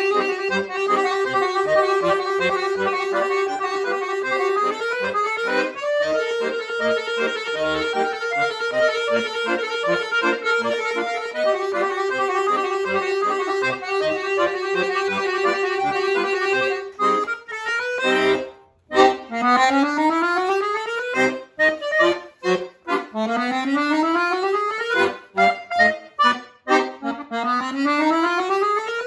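Solo chromatic button accordion playing. A sustained low note sounds under a quick running melody, then after a brief break a little past halfway, the player switches to rapid rising runs and short detached notes.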